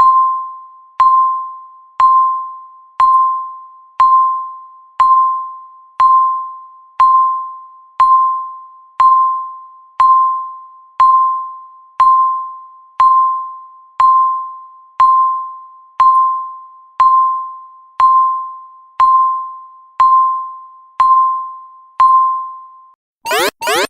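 Countdown timer beeping once a second, each beep a single clear tone that rings and fades. Near the end the beeps stop and a loud, rapidly pulsing alarm starts as the count reaches zero.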